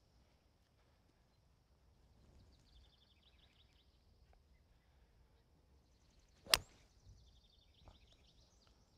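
A golf club striking a ball on a full tee shot: one sharp, short crack about six and a half seconds in. Faint chirps and quiet outdoor air around it.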